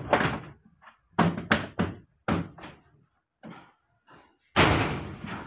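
A string of sudden knocks and thuds: one at the start, four in quick succession from about one to two and a half seconds in, and the loudest near the end, each dying away quickly.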